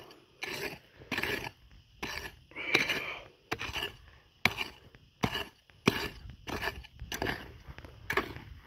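A digging tool chopping and scraping into dry, stony dirt in short repeated strokes, about one every second or less, while digging out a metal-detector target.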